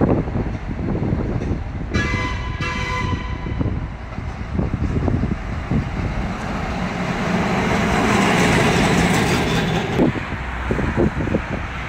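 Street traffic going by, with two short toots of a horn about two seconds in. A vehicle passes close, swelling to its loudest around nine seconds.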